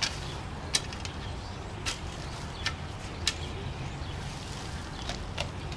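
Shovel being worked into garden soil: several sharp scrapes and clinks of the blade at irregular spacing, over a steady low rumble.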